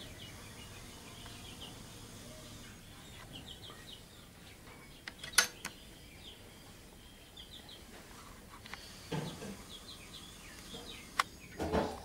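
Small birds chirping in clusters of short, high notes, with a single sharp crack about five seconds in and a smaller click near the end. A hen clucks briefly twice in the second half.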